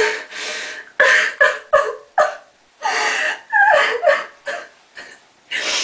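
A woman sobbing: a run of short, gasping breaths and brief whimpers, broken by a couple of short pauses.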